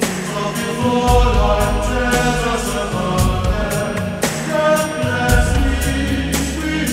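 Music with voices singing long held notes in chorus over a low bass, with scattered percussive hits.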